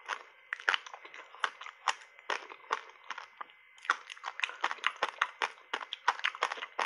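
Reshaped passionfruit ice coated in matcha powder crunching between the teeth as it is chewed: a quick, irregular run of sharp cracks, easing briefly about halfway through and then coming thick and fast again.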